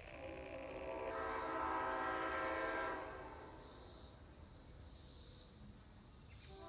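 Nathan Airchime K7HLA seven-bell train horn's chord sounding faintly, swelling about a second in and fading out after about three seconds, then coming back near the end. A steady high hiss runs alongside from about a second in.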